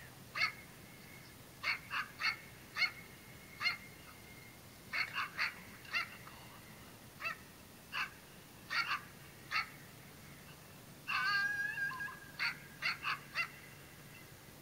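A series of short animal calls at irregular intervals, about seventeen in all, with one longer wavering call about eleven seconds in.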